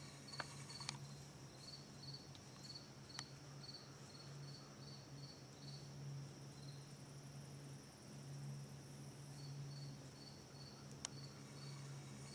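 Faint insect chirping, short high chirps at about two a second, pausing for a few seconds midway and then starting again, over a low steady hum and a few soft clicks.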